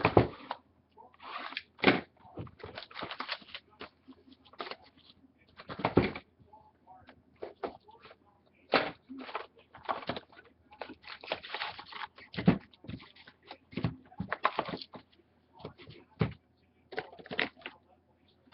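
Foil trading-card pack wrappers crinkling and tearing open, and cards handled, in irregular short rustles and sharp crackles with pauses between.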